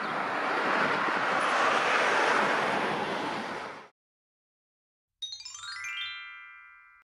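Tram going past, a steady rush of wheel and running noise that swells and then cuts off suddenly about four seconds in. After a moment of silence, a short chime jingle of notes stepping down in pitch rings out and fades.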